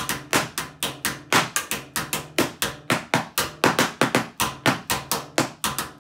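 Flexible rubber marine radio antenna flicked and slapped in rapid taps, about five a second.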